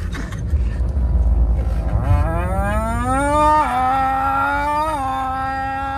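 A person's voice holding one long, moo-like note that starts about two seconds in, rises in pitch, then holds with a few small dips and wobbles, over the low rumble of a car's cabin.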